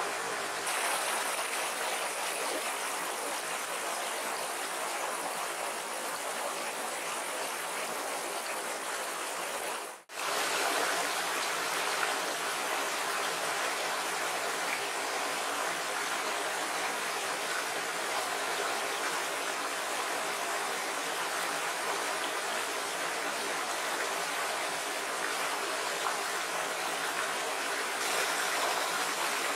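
Small shallow stream rippling over rocks, a steady rushing of water. The sound drops out briefly about ten seconds in.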